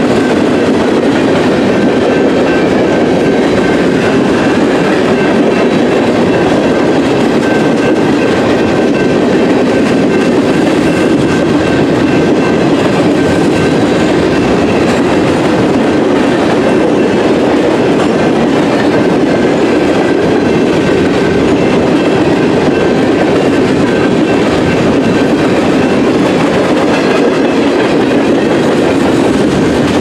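Empty covered grain hopper cars of a freight train rolling past at speed: a loud, steady rumble and clatter of steel wheels on rail, with a faint steady high ring over it.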